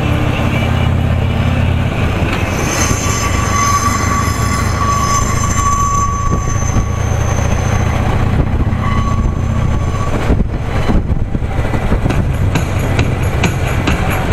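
Harley-Davidson touring motorcycle riding at road speed: a steady low engine drone under rushing wind, with a thin high whine for a few seconds starting about three seconds in.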